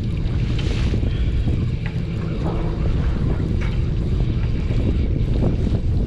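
Wind buffeting the microphone aboard a party fishing boat at sea: a steady low rumble, with the boat and water against the hull underneath and a few faint knocks.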